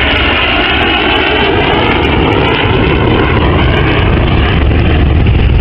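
Hawker Hunter jet flying past overhead: loud, steady jet noise with a deep rumble under a high whine that wavers and slowly slides in pitch.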